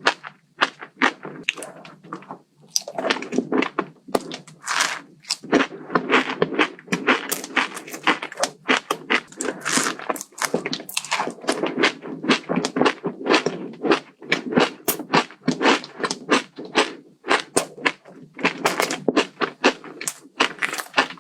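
Close-miked chewing of crunchy food, a dense run of rapid crisp crunches and mouth clicks with brief pauses.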